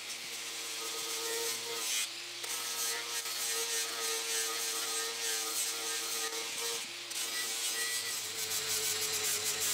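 Angle grinder running against the edge of a laminated wooden seat, grinding it thinner. The steady whine and grinding hiss let up briefly about two seconds in and again around seven seconds.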